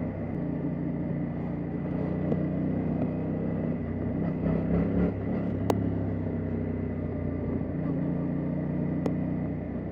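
Yamaha Tracer 700 motorcycle's 689 cc parallel-twin engine running steadily, with a brief swell about four to five seconds in and two sharp clicks later on.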